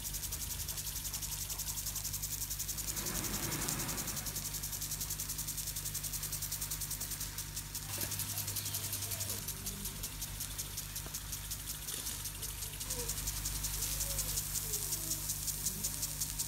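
Garden sprinkler spraying water: a fast, even pulsing hiss, with a low steady hum beneath it.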